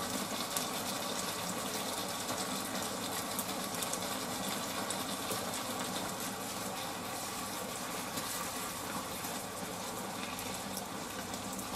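Sliced pork and onions sizzling in ginger sauce in a frying pan as they are stirred with chopsticks: a steady frying hiss with faint small crackles.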